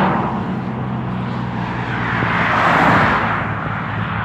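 Road and wind noise of a car driving at speed, with a steady low engine hum underneath; the rushing noise swells and fades about two to three seconds in.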